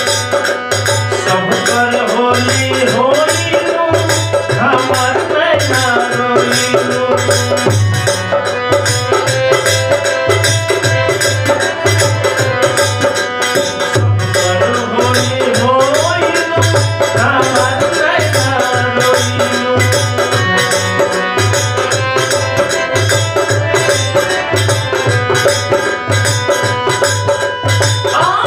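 Bhojpuri Holi folk song music, introduced as set in raga Bhairav: a hand drum keeps a steady beat under a gliding melodic line, with a rattling percussion on top.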